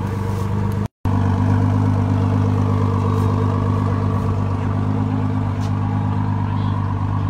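Ford GT's 3.5-litre twin-turbocharged EcoBoost V6 idling steadily through its centre exhaust, with no revving. The sound cuts out for a split second about a second in.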